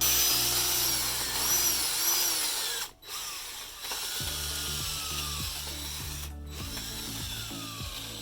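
Power drill boring through wood with a 1-inch installer bit, the motor's whine rising and falling as it cuts; it is loudest in the first few seconds and breaks off briefly twice. Background music underneath.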